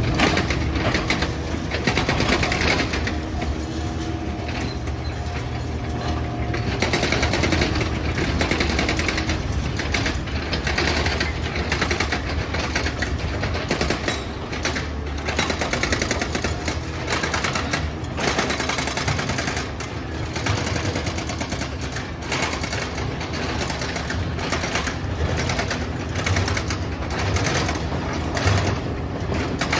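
Komatsu hydraulic excavator engine running steadily, under dense, rapid clattering and knocking from demolition work.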